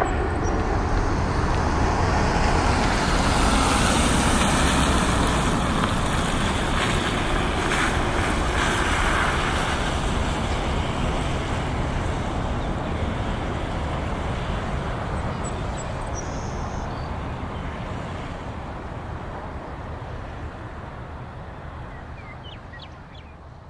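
Boeing 787 Dreamliner's twin jet engines heard as the airliner climbs away after takeoff: a broad roar that peaks a few seconds in, then fades steadily as the aircraft draws off.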